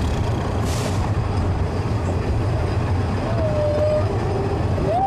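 Narrow-gauge train running with a steady low rumble. Near the end a faint whistle-like tone sounds briefly, then another rises and holds.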